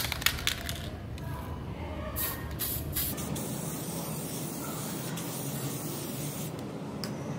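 Aerosol spray-paint can hissing: several short bursts in the first three seconds, then one longer spray of about three seconds, and one more short burst near the end.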